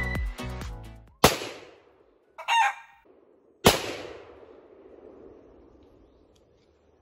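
Two AR-15 rifle shots about two and a half seconds apart, each a sharp crack with an echoing tail; the second tail dies away over about three seconds. A short, high-pitched call sounds between the shots, and music fades out in the first second.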